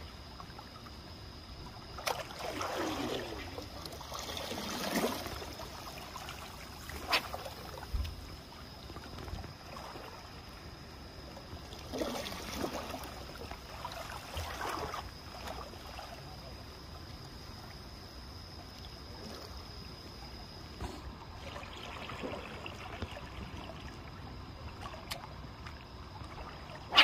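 Seawater lapping and sloshing against the harbour edge, swelling up three times, with a few sharp clicks in between.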